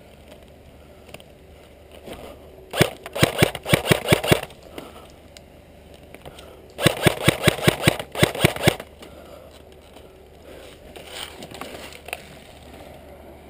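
KWA G36C airsoft rifle firing two quick strings of about eight or nine shots each, roughly five shots a second. The first string comes about three seconds in, the second about halfway through.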